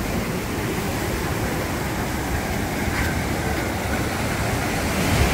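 Ocean surf breaking over rocks and washing in as foamy whitewater, a steady rush with a deep rumble underneath.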